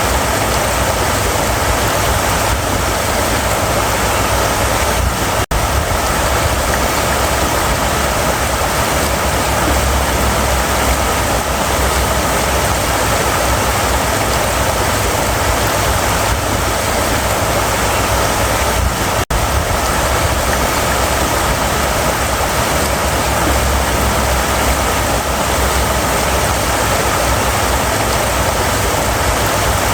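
River water rushing steadily over rocks, a loud unbroken rush. The sound cuts out for an instant twice.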